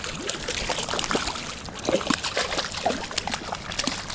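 Splashing in shallow creek water: a hooked trout thrashing at the surface as it is landed by hand, a run of short, irregular splashes.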